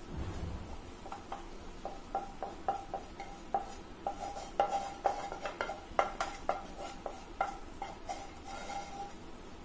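Spatula scraping thick barfi mixture out of a non-stick pan onto a steel plate: irregular knocks and scrapes, roughly two a second, several leaving the steel plate ringing briefly.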